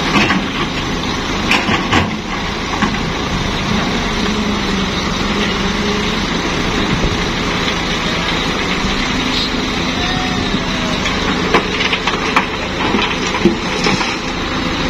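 Caterpillar 320B excavator's diesel engine running steadily under digging load, its pitch stepping up about two-thirds of the way through as the machine swings. A few sharp knocks of rock against the steel bucket come near the start and several more near the end.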